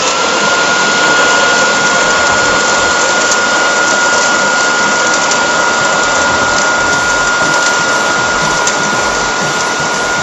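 Electric 3000 W garden blower-vacuum-shredder motor spinning up at the very start, then running steadily at full speed: a constant high whine over a rush of air.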